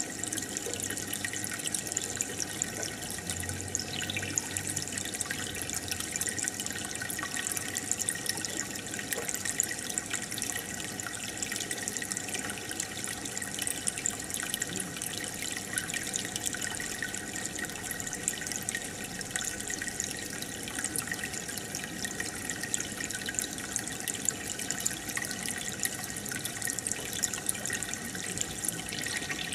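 Aquarium water bubbling and trickling steadily, with a dense patter of small splashes and drips.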